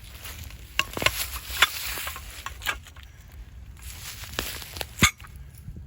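Rustling and scattered sharp knocks and clicks from handling a small uprooted pine tree and a steel tree puller, with footsteps. The loudest knock comes near the end.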